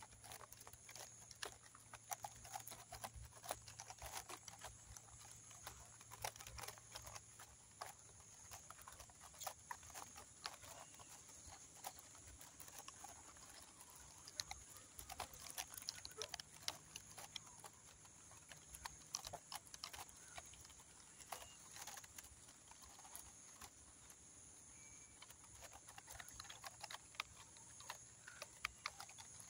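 Near silence: faint scattered ticks and crackles over a steady high-pitched hiss.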